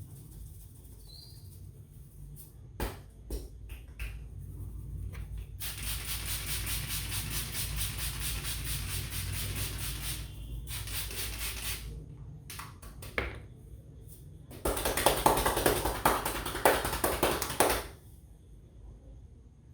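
A barber's hands tapping and patting rapidly on a person's head during a head massage: a few single slaps about three seconds in, a run of quick strokes lasting several seconds, more scattered slaps, then a louder, shorter run of quick strokes near the end.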